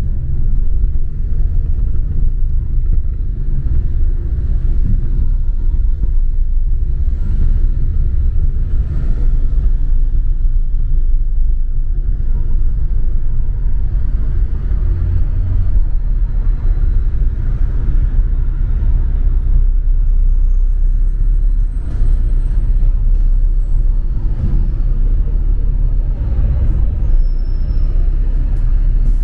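Steady low rumble of a double-decker city bus on the move, heard from on board: engine and road noise with no breaks.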